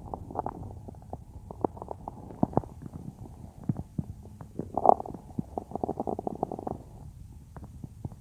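Human stomach gurgling: a run of small pops and gurgles, with a louder gurgle about five seconds in and a longer stretch of gurgling just after it.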